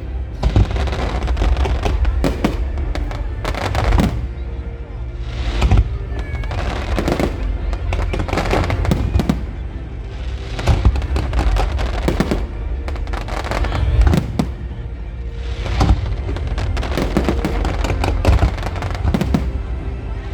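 Fireworks display: aerial shells bursting with repeated bangs and crackles throughout, over a low rumble, with music playing underneath.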